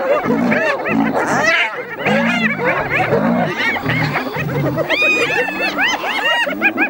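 A group of spotted hyenas giggling and whooping, many short rising-and-falling calls overlapping, with deep repeated growls underneath about twice a second.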